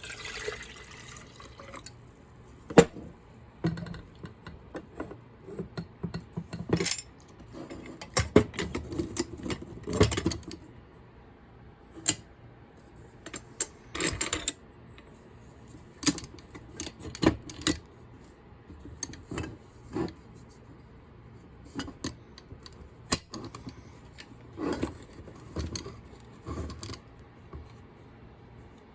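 Fuji Spray T70 spray gun and its cup being handled while it is readied for a water test: scattered clicks, knocks and clatter of plastic and metal parts, with a short hiss near the start.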